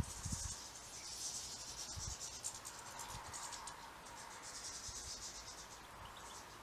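European goldfinches twittering: high, rapid trilling phrases in several short bouts.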